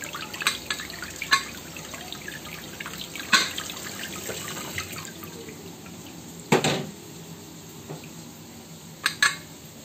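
Tap water pouring onto the aluminium lid of a pressure cooker standing in a water-filled stainless steel sink, splashing steadily, with a few sharp knocks, the loudest about six and a half seconds in. No steam hisses from the valve: the cooker has lost its pressure.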